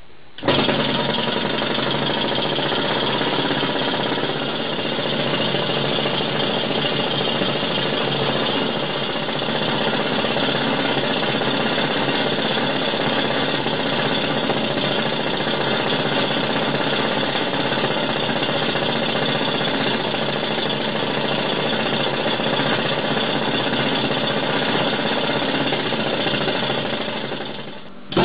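An engine running steadily with a fast, even beat. It starts abruptly and briefly fades away near the end before coming straight back.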